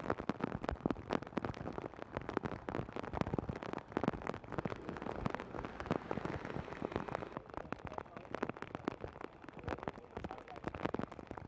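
Heavy rain pelting a hard surface: a dense, irregular spatter of sharp drop hits that starts abruptly.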